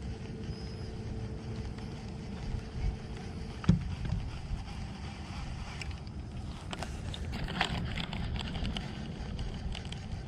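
Steady low rumble of wind and water around a small fishing boat, with a faint steady hum that stops at a sharp knock about a third of the way in. A few light clicks follow later.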